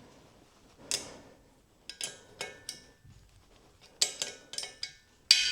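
Metal-on-metal clicks and clinks from a nut and washer puller being tightened on the seized rocker shaft of a 1964 Norton Atlas cylinder head, in small groups of taps. Near the end comes a louder, sharper click with a brief metallic ring: the seized rocker shaft breaking free.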